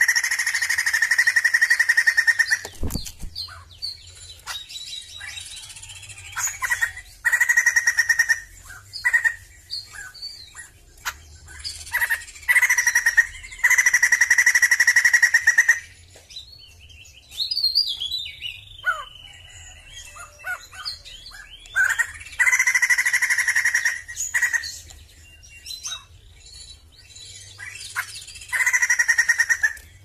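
Sumatran laughingthrush singing in loud bouts of rapid, pulsed chattering, each one to three seconds long, about five times, with quieter calls and a falling whistled note between them. A single knock about three seconds in.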